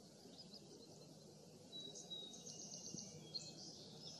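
Faint outdoor background with distant birds giving short high chirps, mostly in the second half.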